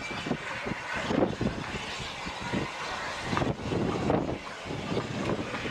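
Small steam tank locomotive working slowly along the platform with a train: irregular exhaust beats over a continuous hiss of steam from its open cylinder drain cocks.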